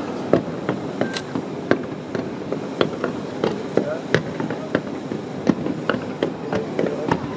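Fireworks going off as irregular sharp bangs and cracks, about two a second, over a background of crowd chatter.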